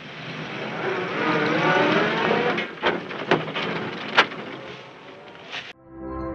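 A bus pulling away, its engine and gears whining upward as it gathers speed, followed by three sharp clacks. A sustained, eerie gong-like music chord cuts in suddenly near the end.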